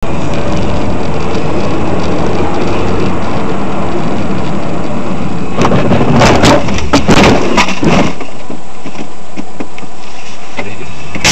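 Loud car interior noise picked up by a dashcam's microphone: engine running and road noise, with a cluster of sharp knocks and clatter between about six and eight seconds in.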